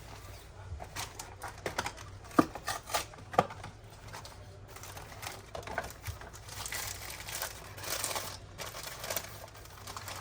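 Irregular clicks and taps with some crinkling, two of them louder a little after two and three seconds in, over a steady low hum.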